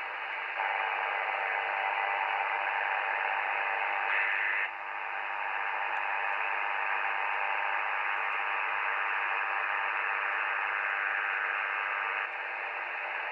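Icom IC-725 HF transceiver's speaker giving out steady receiver hiss with no signal, in LSB mode. The hiss steps up and down in level a few times as the receiver is stepped from band to band a megahertz at a time.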